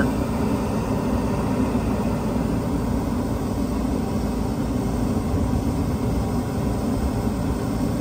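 Furnace draft inducer blower running steadily: an even low hum and rush of air. The unit is cycling through an ignition attempt whose gas valve does not open.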